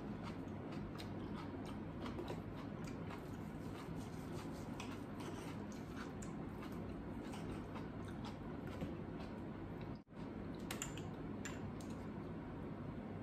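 Close-up eating sounds: soft chewing and small clicks of a knife and fork on a plate as steak is cut, over a steady low room hum. The sound drops out for a moment about ten seconds in, then a few ringing clinks of a metal spoon against a small sauce bowl.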